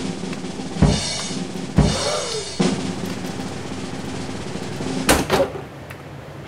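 Drum hits from a music track: three heavy bass-drum and snare strikes about a second apart, then a louder crashing hit with a ringing tail about five seconds in.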